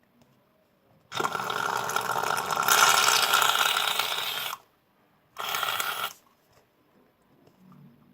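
Aerosol can of Arko shaving foam spraying foam out: a long hiss of about three and a half seconds, then a second short spurt a second later.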